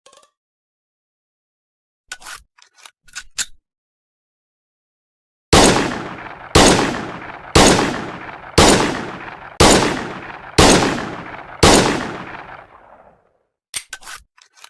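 M1911 pistol sound effect: a few metallic handling clicks, then seven shots fired at about one a second, each with a ringing tail that dies away, followed by a few more mechanical clicks near the end.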